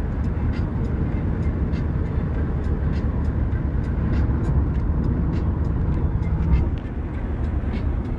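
A car driving along a road, heard from inside the cabin: a steady low rumble of engine and tyre noise, with scattered faint ticks.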